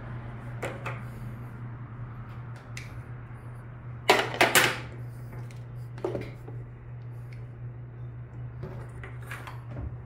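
Metal rifle-cleaning rod and cleaning kit being handled: scattered clicks and knocks, a louder scraping rustle about four seconds in, then a clack a second and a half later, over a steady low hum.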